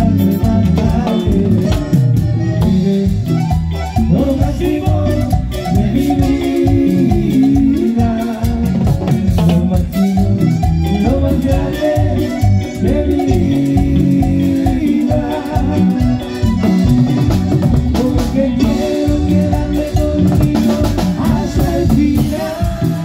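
Live Latin dance band playing: accordion and keyboard melody over congas and a steady beat, with a male lead singer at the microphone.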